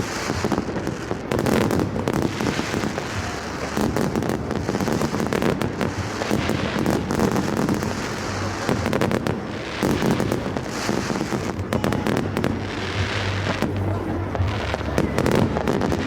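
Fireworks going off: a dense, continuous run of bangs and crackles, one after another.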